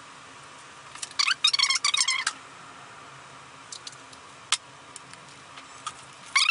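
Bi-directional strapping tape pulled off the roll: a crackling, squeaky rip about a second in, a few single ticks, then another quick pull near the end.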